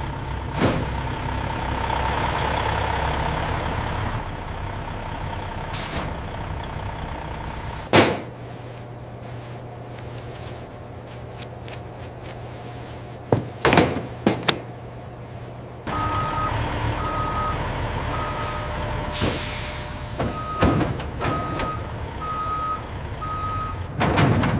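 Steady industrial machine and vehicle noise with a few sharp clanks. In the last third a reversing alarm beeps repeatedly, a little more than once a second.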